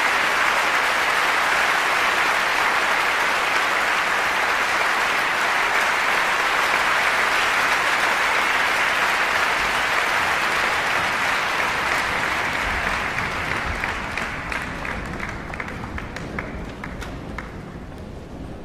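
Concert hall audience applauding: dense, steady applause that thins out and fades about two-thirds of the way through, individual claps standing out near the end. A low rumble comes in as the applause fades.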